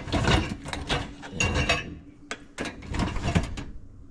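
LG dishwasher's dish racks rattling and clattering as they are slid out on their rollers, in a quick run of irregular knocks that thins out near the end.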